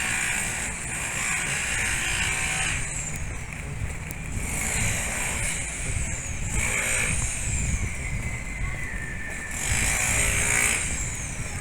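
Outdoor ambience with a steady low rumble and vehicles going by, each swelling and fading over a second or two, several times.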